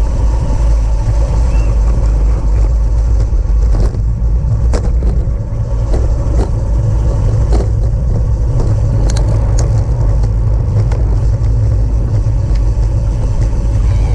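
Steady wind rumble over the microphone of a road bike rider's camera, with a few sharp clicks.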